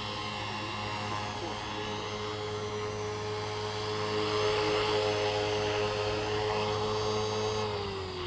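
Align T-Rex 450 3GX electric RC helicopter's brushless motor and main rotor whining at a steady pitch while it sits on the ground. Near the end the pitch starts to fall as the rotor spools down.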